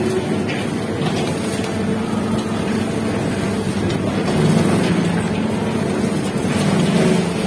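Sugar mill cane-unloading crane and surrounding mill machinery running with a steady drone; a low hum strengthens about two seconds in and again near the end as the crane's grab lowers into the trolley load of sugarcane.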